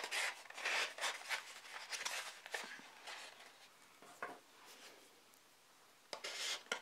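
Stiff watercolour paper rustling and scraping as a folded paper bag is squeezed and shaped by hand, in uneven bursts over the first few seconds, then quieter, with one more short rustle near the end.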